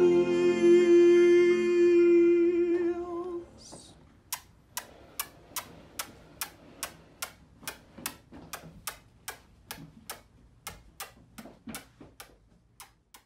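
A man sings one long, held note on a drawn-out "kiss", cutting off about three and a half seconds in. After a short pause comes a steady clock-like ticking, about two to three ticks a second, getting fainter toward the end.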